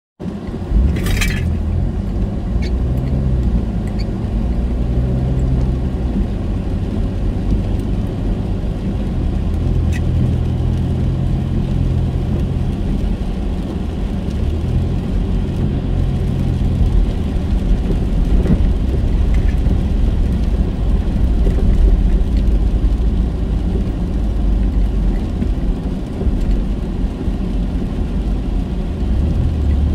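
Steady low engine and tyre rumble of a car driving on a wet road, heard inside its cabin. There is a brief high squeak about a second in and a few faint ticks.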